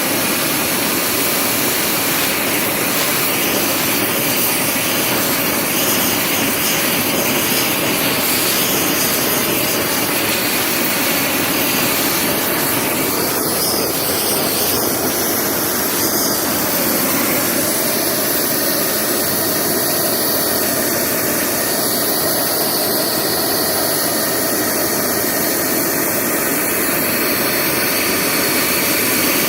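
Propane torch burning with a steady, unbroken rushing hiss as its flame is played over a pine post to char it.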